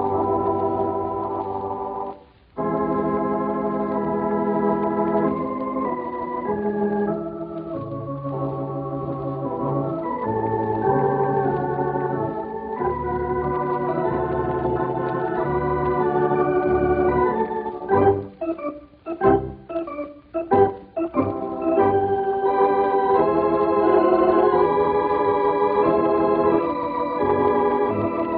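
Organ playing a medley in full sustained chords over a moving bass line. The sound drops out briefly about two seconds in, and there is a run of short, detached chords about eighteen seconds in. Old disc recording with a dull, narrow top end.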